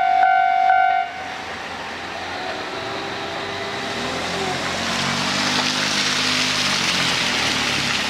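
A level crossing's electronic warning bell sounds two tones about twice a second and stops about a second in. After it, the departing KiHa 40 diesel railcar's engine and running noise carry on under a rushing sound that grows louder toward the end.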